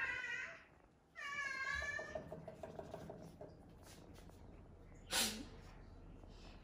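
Domestic cat meowing: a short meow at the start, then a longer meow about a second in that trails off into a low, rapid rattling. A brief sharp sound comes about five seconds in.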